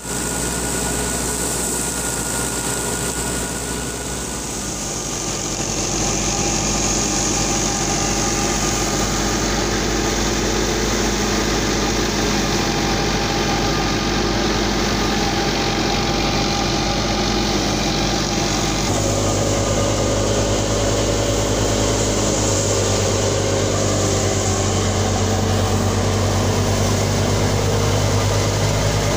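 Tractor engine running steadily while driving a wheat thresher, with a continuous machine hum and hiss. The note shifts about five seconds in and again a little past the middle.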